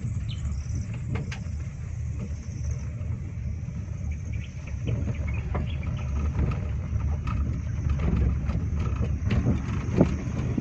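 Car driving on a rough, patched narrow road, heard from inside the cabin: a steady low rumble of engine and tyres with scattered knocks and rattles.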